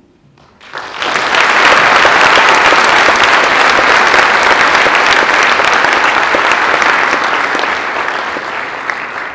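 Audience applauding: dense clapping that starts about a second in, stays loud, and eases off slightly near the end.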